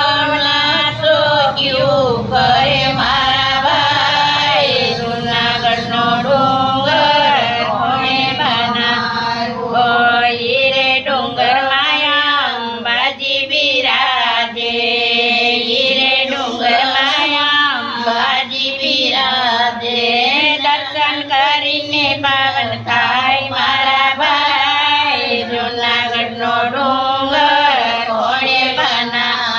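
Group of elderly women singing an old Gujarati devotional folk song (satsang geet) together in a chant-like way, one voice reading the words from a booklet.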